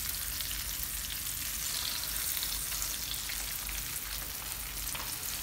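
Mackerel fillets frying in hot vegetable oil in a frying pan: a steady sizzle with small crackles and spits.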